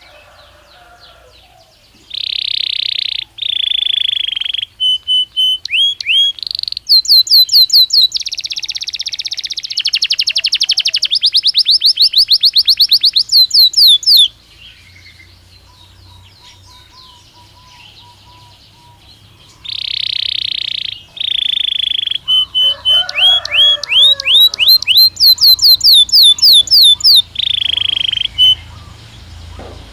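Belgian canary singing two long, loud song phrases, each a run of held high notes and fast rolling trills of rapidly repeated sweeping notes, with a quiet pause of about five seconds between them.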